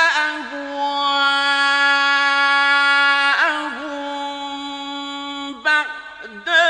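A man's voice reciting the Quran in melodic tajweed, drawing out one long, steady vowel with a melodic turn in the middle. After a short break near the end, a new ornamented phrase begins.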